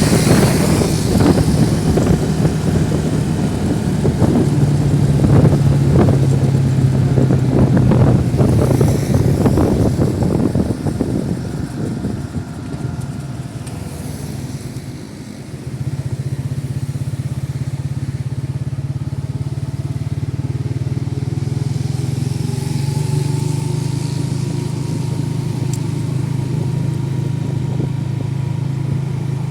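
Motorcycle engine running during a ride, with wind buffeting the microphone for the first part. About halfway through the engine note drops away, then settles into a steady, even note.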